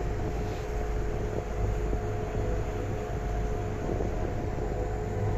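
River cruise boat's engine running steadily: a constant low drone with a steady hum above it.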